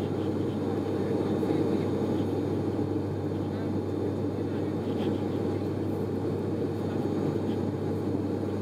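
ATR 72-500 turboprop cabin drone during the climb after takeoff: its Pratt & Whitney PW127 engines and propellers make a steady, even rumble with a constant low propeller hum.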